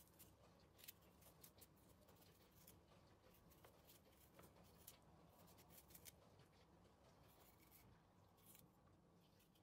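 Faint, irregular crisp clicks and snips of a knife cutting food, over a low room hum.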